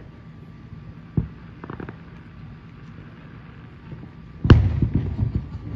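Aerial firework shells bursting: a few scattered pops and small cracks at first, then a loud bang about four and a half seconds in, followed by a quick run of crackling reports.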